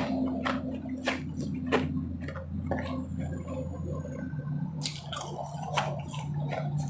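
Close-up chewing of refrozen powdery snow ice: crisp crunches, one every half second to a second, over a steady low hum.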